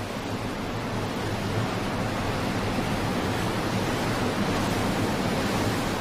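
Steady rushing of wind and open sea, even and unchanging, with a faint low hum underneath.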